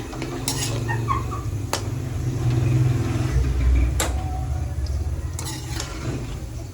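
A motor vehicle passing close by: a low engine rumble that swells towards the middle and fades. Two sharp knocks come over it, about two seconds apart.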